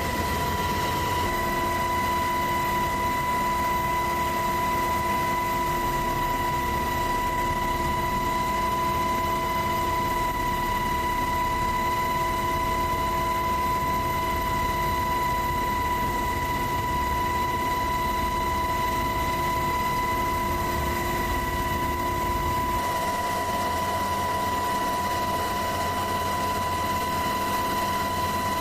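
UH-60 Black Hawk helicopter heard from on board: a steady high whine made of several tones over a low rumble. About three-quarters of the way through, the low rumble drops away and one of the tones stops.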